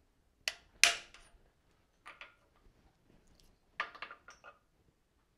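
Two sharp metal taps about a third of a second apart on a steel pipe sleeve, driving an aluminium disc onto pointed screws to punch transfer marks into it, followed by lighter metallic clinks of the sleeve and disc being handled.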